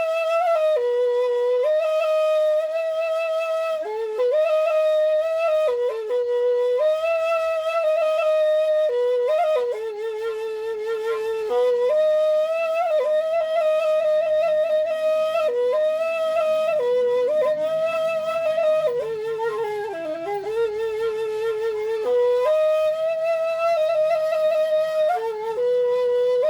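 Balinese suling bamboo flute playing a slow solo melody of long held notes, stepping between a few neighbouring pitches with quick ornamental flicks between them.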